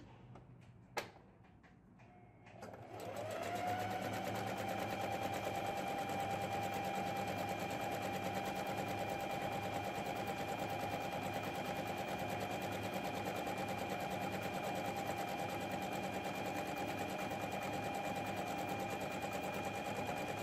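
Electric domestic sewing machine starting up a couple of seconds in and then running steadily at speed, stitching a seam along the edge of the fabric. A single sharp click comes about a second in, before the motor starts.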